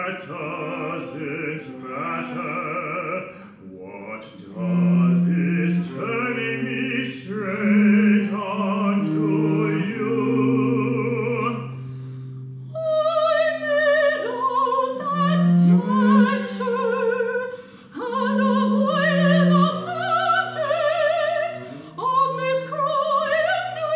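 Operatic singing with cello accompaniment. A man's voice sings for about the first half, then after a short break a soprano takes over, over sustained low cello notes.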